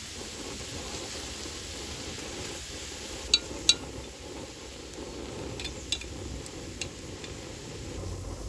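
Food sizzling steadily in a pan, with a few sharp clicks: two close together about three and a half seconds in, and a couple more later.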